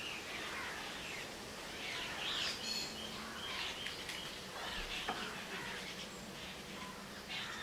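Birds chirping and calling over a steady background hiss, with a short rapid trill a little under three seconds in.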